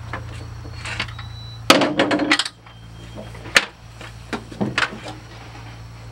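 Sharp clicks and clatter of a drill bit being changed on a cordless drill: a quick burst of rattling clicks about two seconds in, then a few single clicks, over a steady low hum.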